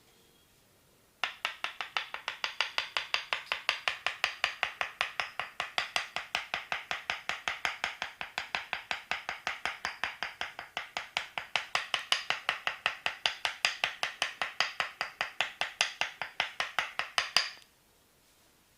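A fast, even run of percussive massage strikes on the body, about five a second, that starts about a second in and stops suddenly near the end.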